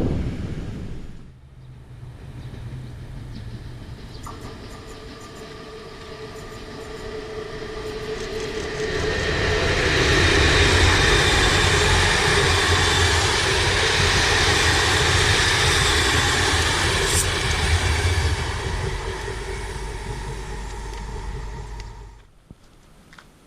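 Electric train passing by: a low rumble with a steady motor whine builds up, is loudest for several seconds, then fades away and cuts off near the end.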